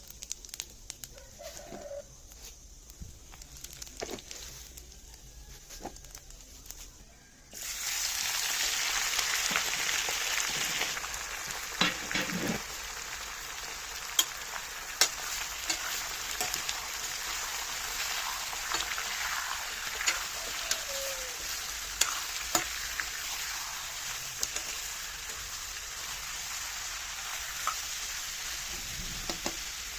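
Cooking pan with a few light clicks, then hot oil suddenly breaks into loud sizzling about seven seconds in as food goes in. The sizzle eases to a steady frying hiss, with a spatula clicking against the pan as the contents are stirred.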